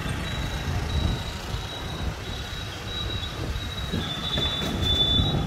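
Heavy road traffic: a continuous low engine rumble with a thin, steady high-pitched squeal that grows louder about four seconds in.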